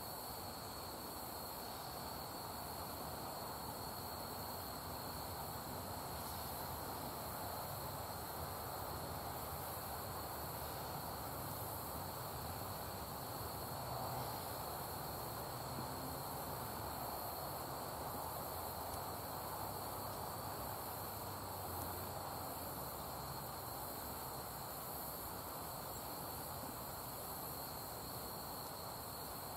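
Steady insect chorus: a constant high-pitched trill that holds unchanged throughout, over a faint even background hiss.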